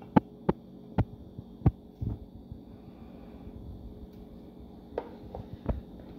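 A metal spoon scooping garam masala from a plastic tub and clinking on the tub and a steel mixing bowl: sharp clicks bunched in the first two seconds and again near the end, over a steady low hum.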